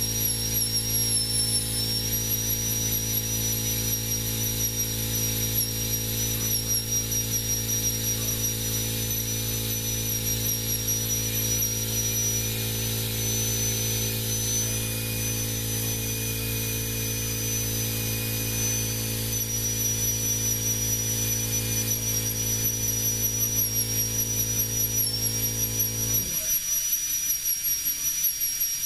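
High-speed NSK Presto air-turbine handpiece whining at a high pitch while its bit stipples a wooden rifle buttstock, the pitch wavering slightly as the bit meets the wood. A steady low hum runs underneath and cuts off suddenly near the end while the whine carries on.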